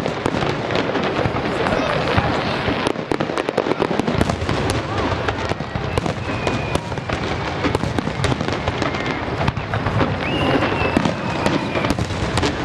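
Aerial fireworks display: shells bursting one after another in a dense, continuous barrage, with many sharp crackles.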